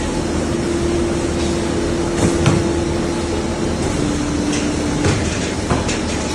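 Blanking and stripping machine for corrugated board running: a steady mechanical din under a held hum that drops slightly in pitch about four seconds in, with a few sharp knocks.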